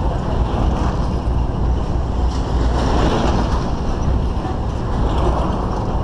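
Steady rumble of a GMC Suburban towing a wooden flatbed trailer over a dirt road, the road and vehicle noise running continuously without a break.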